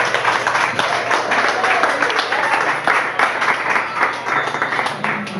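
Audience applauding, with a few voices calling out among the clapping.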